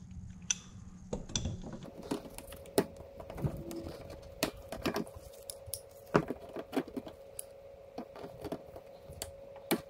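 Irregular light clicks and taps of pliers working a hose clamp along a rubber hose, nudging it back into place. A faint steady tone runs underneath from about two seconds in.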